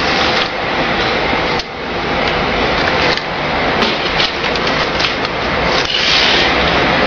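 Automatic A3 business card cutter running, feeding and slitting a printed sheet: a steady mechanical whir with many small clicks.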